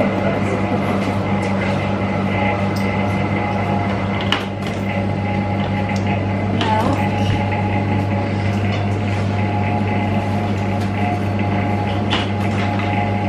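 Milk vending machine humming steadily, with a few sharp knocks as the glass bottle is handled in the steel dispenser hatch.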